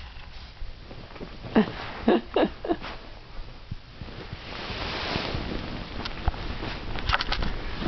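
A puppy and a kitten play-fighting: about a second and a half in, four short vocal sounds, each falling in pitch, then a longer stretch of scuffling and rustling, with a few sharp knocks near the end.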